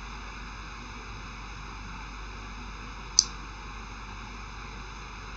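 Quiet room tone: a low steady hiss with a faint, steady high-pitched electrical whine, and one short click about three seconds in.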